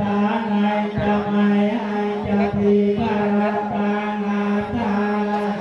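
Buddhist chanting: many voices reciting together on one steady held pitch, with brief breaks now and then.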